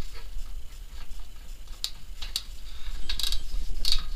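Ratchet wrench clicking as it runs the self-locking nut onto a new tie rod end's stud. The clicks come in short bursts, sparse at first and then several in the second half, each about half a second apart.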